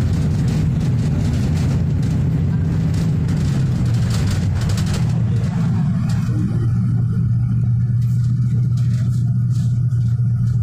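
Bus engine and road noise heard from inside the moving bus, a steady low drone. About six seconds in the hiss of the road fades, leaving a steady low engine hum.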